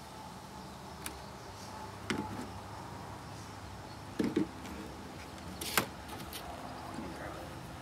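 A few scattered clicks and light knocks as grooming tools are handled and set down on a plastic folding table, the sharpest about two thirds of the way in, over a steady background hum.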